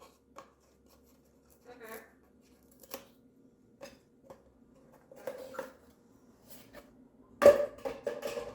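Moluccan cockatoo playing with a toy: scattered clicks, taps and rattles of beak on the toy, with a loud sudden sound near the end.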